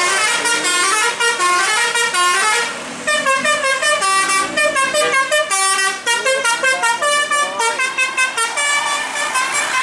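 Bus basuri telolet horn playing a quick melody of short horn notes that step up and down in pitch, with a brief break about three seconds in.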